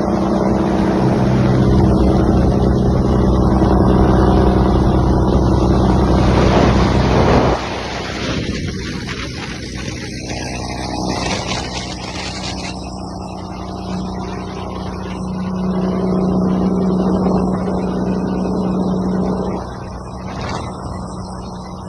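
Scania 113 truck's six-cylinder diesel engine running hard, then dropping suddenly to a lower, quieter note about seven and a half seconds in; it builds up again for a few seconds near the end before falling back.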